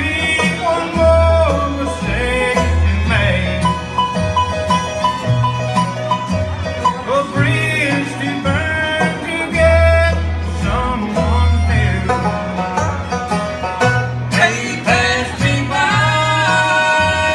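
Bluegrass band playing, with banjo and guitar over a steady bass line.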